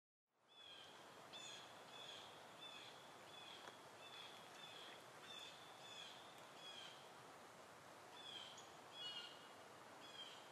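Faint bird chirping: short, high chirps repeated every half-second or so, with a brief pause partway through, over a low background hiss.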